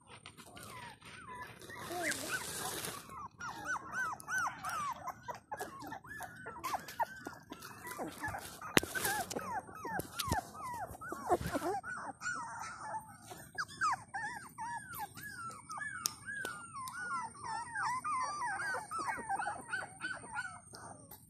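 Several young puppies whining and whimpering together, a rapid, overlapping stream of short high cries that rise and fall in pitch, with a brief burst of rustling noise about two seconds in.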